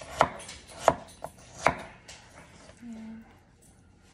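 Chef's knife chopping food on a cutting board: three sharp strikes and a softer one, about half a second apart, then a pause.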